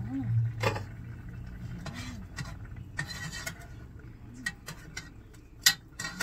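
Metal pot lids and a cooking spoon clinking against pots on a stovetop, with a short stirring scrape about three seconds in. The sharpest clink comes near the end.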